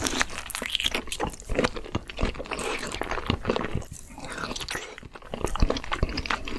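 Crispy fried shrimp being bitten and chewed, a dense run of irregular crunching crackles.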